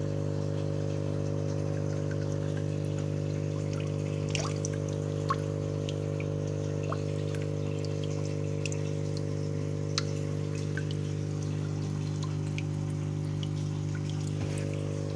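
Water dripping and trickling into a goldfish tank, scattered small drips over a steady low electric hum, as from the tank's pump.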